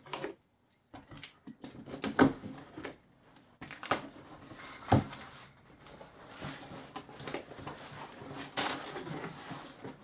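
Cardboard shipping box being opened by hand: packing tape slit with a box cutter and the flaps pulled open, with scraping, irregular clicks and one sharp knock about five seconds in. Crinkling of crumpled kraft packing paper follows as the box opens.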